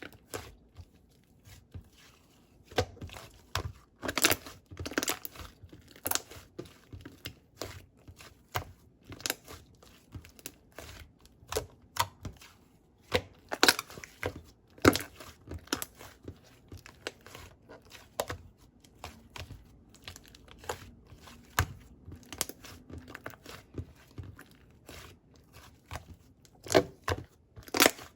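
Crinkly material being handled and torn, in irregular crackles and small clicks.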